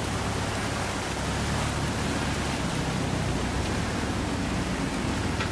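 Steady rushing and churning of water as an off-road 4x4 wades along a river, with a low engine hum underneath.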